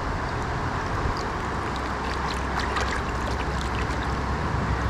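Small splashes and swishing of water as a gutted trout is rinsed by hand in the river, over the steady rush of the flowing current.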